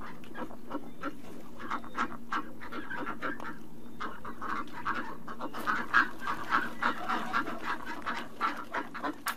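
Ducks quacking: a rapid, dense run of short calls, busiest in the second half.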